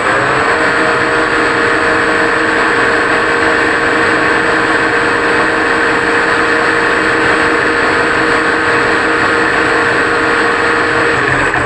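AC motor of a Monarch 10EE lathe conversion running under a Huanyang GT variable frequency drive, coming up to speed about half a second in and running steadily, with a thin high whine of carrier-frequency noise on top. The carrier frequency has just been set to 10, and the remaining whine is almost too faint for the ear. The run winds down and cuts off at the very end.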